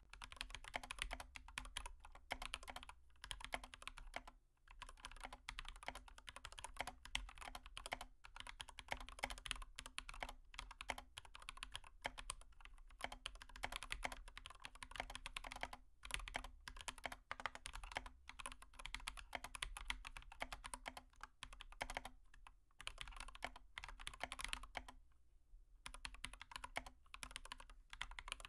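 Faint, rapid, irregular clicking and tapping that pauses briefly about four seconds in and again near the end, over a faint steady low hum.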